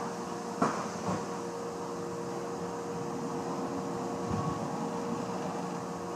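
Haas VF4 CNC vertical mill cutting 304 stainless steel under flood coolant: a steady tone from the spindle and cut over the hiss of the coolant spray. Two sharp knocks come about half a second apart near the start.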